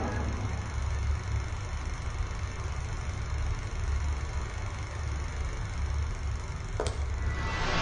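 Low, steady rumbling drone with one faint click about seven seconds in.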